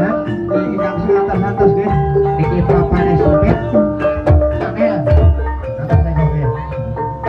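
Gamelan music for an ebeg horse dance: mallet-struck keyed instruments play a running, ringing melody over kendang drum strokes, whose deep notes bend in pitch.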